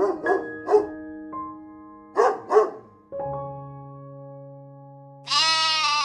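A dog barks in short bursts, three in the first second and two more about two seconds in, over steady background music. Near the end a goat gives one loud bleat.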